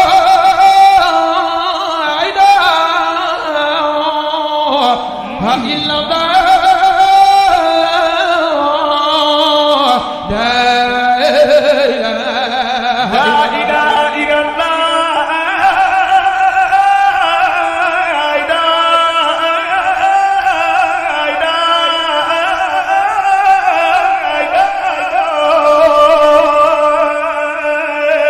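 A man's voice singing Islamic praise in long, ornamented held notes that bend and slide between pitches, without a pause.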